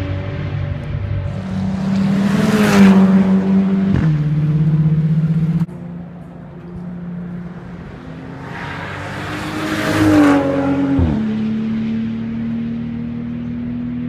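Two racing cars passing at speed, one after the other. Each engine note swells as the car nears, then drops in pitch as it goes by. The sound cuts abruptly between the two passes.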